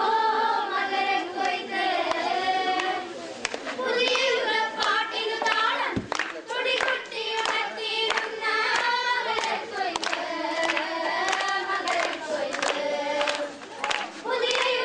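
A group of girls singing a song together, with hand claps keeping the beat about twice a second.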